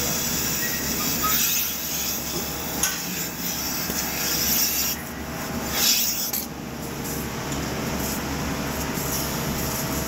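Milking parlor vacuum machinery running steadily, with several surges of hissing air as a milking unit's teat cups are put onto a cow's teats.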